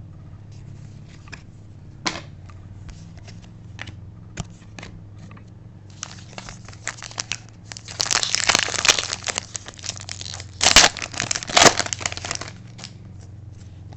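Plastic packaging crinkling as trading cards are handled: scattered light rustles and clicks at first, then about six seconds of dense crinkling in the second half, loudest near the end of that stretch, over a low steady hum.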